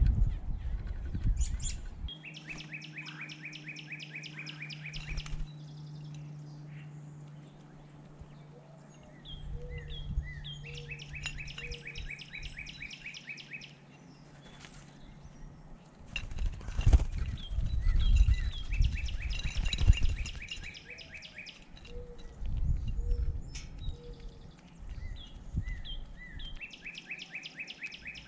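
Songbirds at a feeder: a rapid, high trill repeated four times, each lasting two to three seconds, with scattered short chirps. Low thumps and rumbling sound midway through.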